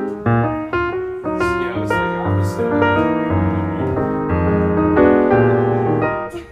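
Piano music: a run of held notes over low bass notes.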